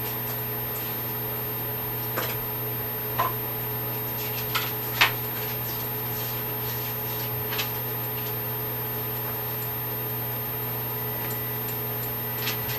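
Steady hum of room ventilation or air conditioning, with a handful of short, light clicks and taps scattered through it, the sharpest about five seconds in.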